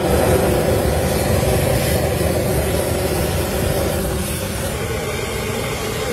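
Steady sizzling and hiss of battered squid and prawns deep-frying in a large wok of hot oil, easing off slightly near the end.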